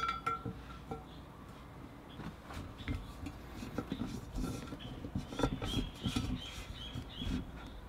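Pliers working a valve stem out of a scooter wheel rim: irregular metal clicks and taps, a sharp click with a short ring at the start, and a run of short high squeaks in the second half as the stem is pulled and wiggled in the rim hole.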